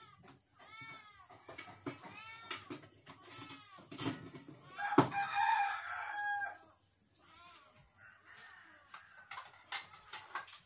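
Chickens calling, a run of short rising-and-falling calls, then a rooster crowing for about a second and a half, starting about five seconds in. A sharp knock comes just before the crow, and light clatter runs throughout.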